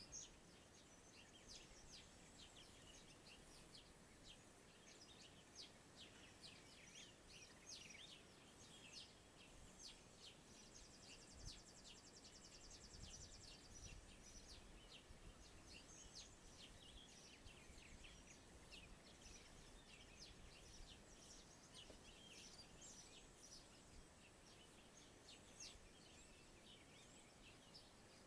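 Faint outdoor birdsong: many short, high chirps scattered throughout, with a rapid trill lasting a few seconds around the middle, over a steady background hiss.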